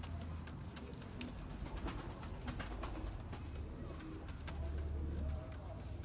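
Domestic pigeon cooing in low, wavering calls, clearest near the end, with a few sharp clicks here and there.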